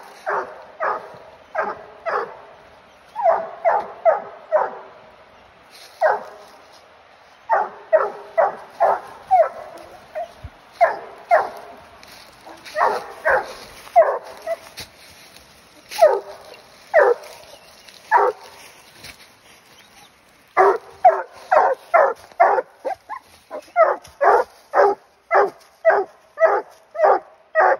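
Six-month-old black and tan coonhound pup barking treed: repeated short barks at the base of a tree, the sign that she has quarry up it. The barks come irregularly at first, then in a quick steady run of two or three a second about three-quarters of the way in.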